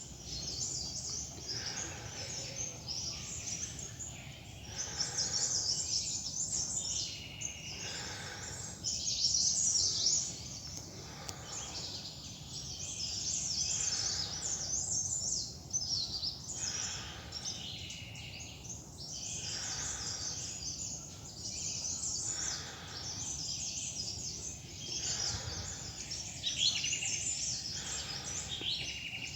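Dense chorus of many small forest birds chirping and twittering, with footsteps on a loose-soil trail about every second and a half.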